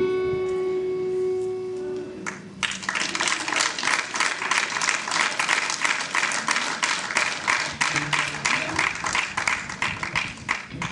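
A guitar's last note rings out for about two seconds, then audience applause starts and carries on through the rest.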